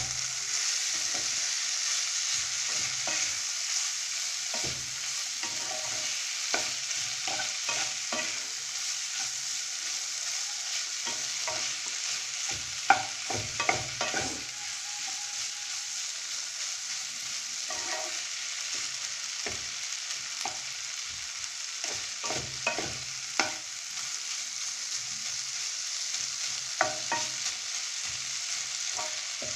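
Chopped vegetables and ground spices frying in oil in a non-stick kadai with a steady sizzle, stirred by a wooden spatula that knocks and scrapes against the pan in irregular taps, with a louder clack about 13 seconds in.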